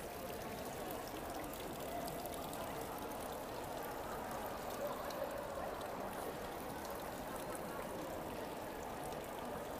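Small indoor fountain's water jets splashing steadily into a pool.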